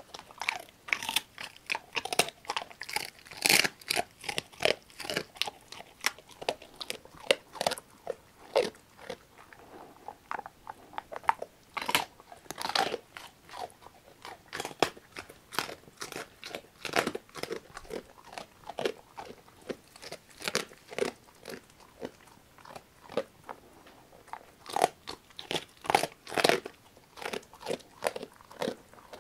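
Labrador retriever mix dog crunching and chewing a duck neck bone treat, the bones cracking in quick, irregular crunches with louder bouts a few seconds in, around the middle and near the end.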